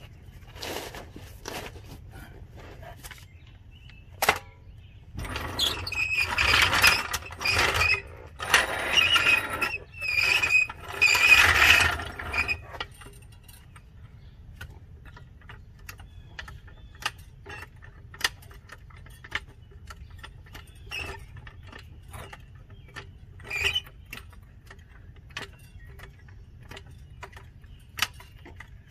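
Jack equipment being moved into place on a concrete floor: scraping and squealing in three stretches of a couple of seconds each, then scattered light clicks and knocks as the jack gear is settled under the brake rotor.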